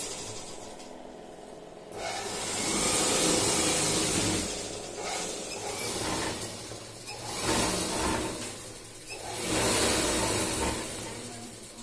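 Electric sewing machines running in bursts as fabric is stitched, with a steady motor hum underneath. The machines run hardest from about two seconds in and again in two shorter spells near the end.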